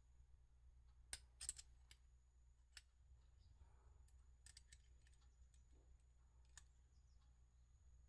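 A handful of sharp, small clicks from a ZTTO spoke tension meter being handled as a steel calibration rod is seated between its pulleys and the lever is worked. The loudest cluster comes about a second and a half in, and the rest are scattered and fainter, against near silence.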